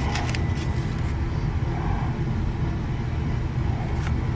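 Steady low rumble of background noise, with a few light clicks near the start and another about four seconds in.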